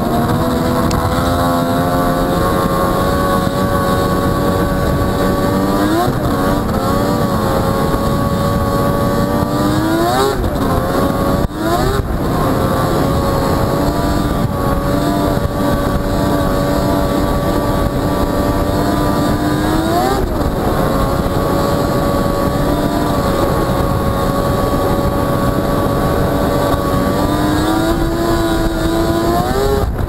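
1998 Arctic Cat Thundercat 1000 snowmobile's three-cylinder two-stroke engine running under way at a steady pitch. Its pitch climbs sharply about four times as the throttle is opened, most plainly about a third of the way in, two-thirds of the way in and near the end.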